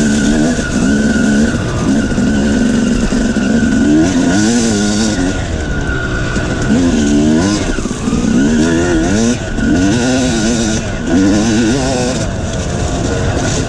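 2006 Yamaha YZ250 single-cylinder two-stroke dirt bike engine with an aftermarket DEP expansion-chamber pipe, revving up and down again and again as it is ridden across loose gravel, its pitch rising and falling with each blip of the throttle.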